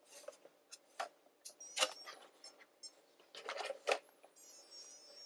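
Light knocks and clicks as a plastic-bodied RC scale crawler is handled and set down on a table, with a faint high squeak near the end.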